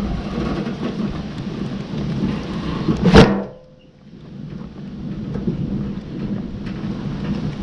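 Steel wheelbarrow loaded with birch log rounds rolling over bumpy grass, rumbling and rattling. About three seconds in there is a single loud metallic bang with a short ring as the load jolts. The rolling stops for about half a second, then starts again.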